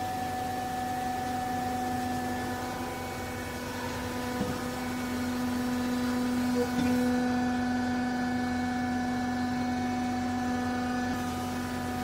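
Hydraulic power unit of a vertical clothes baler running, a steady electric motor and pump hum. The hum grows louder and fuller about four seconds in, with a couple of short knocks around four and a half and seven seconds in.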